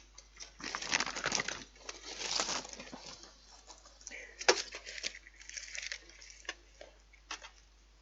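Crinkling and rustling of a chocolate bar wrapper being handled, in irregular bursts, with a sharp click about four and a half seconds in.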